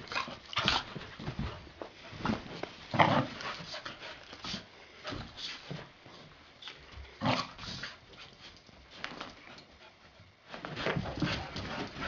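Two retriever puppies play-wrestling on carpet: scuffling and short dog noises in irregular bursts, loudest about three seconds in and again about seven seconds in. It quiets briefly, then picks up again near the end as they break off and chase each other.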